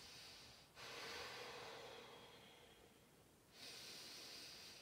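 A woman breathing slowly and audibly through a held exercise pose: long, soft breaths, one ending just under a second in, a longer one fading out over the next two seconds, and another starting about three and a half seconds in.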